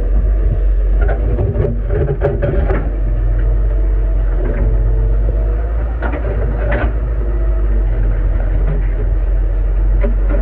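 Excavator's diesel engine running with a steady low rumble. Clusters of knocks and scrapes come about a second in and again around six seconds in.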